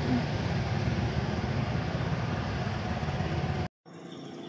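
Steady low rumble of a motor vehicle engine running, cut off abruptly about three and a half seconds in, then a quieter outdoor background.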